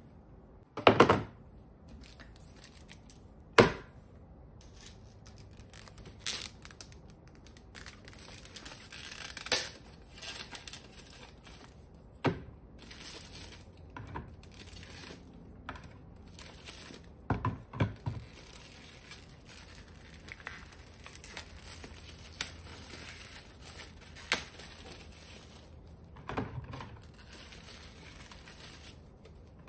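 Plastic grocery packaging crinkling and being torn open, broken by scattered sharp knocks as plastic baskets and packaged items are set down on a shelf; the loudest knocks come about a second in and a few seconds later.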